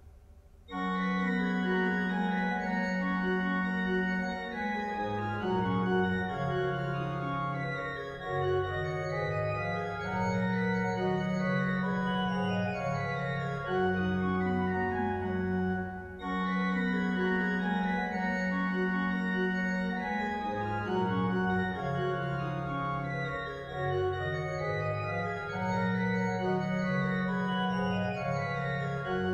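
Pipe organ playing a baroque variation, quick running figures over held bass notes, starting about a second in. A short break comes about halfway, and the opening passage then repeats.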